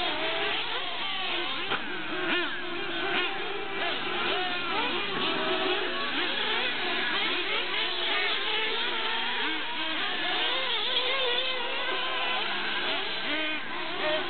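Several radio-controlled truggies racing together, their motors revving up and down in overlapping whines that rise and fall as the cars accelerate, jump and brake.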